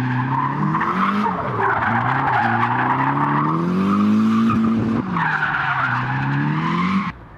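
A car drifting: its engine revs hard while the rear tyres squeal in a long slide. The engine pitch climbs, dips about five seconds in, and climbs again. The sound cuts off suddenly near the end.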